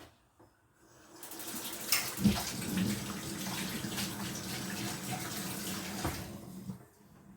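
Kitchen tap turned on and running into the sink for about five and a half seconds, with a knock about two seconds in, then shut off.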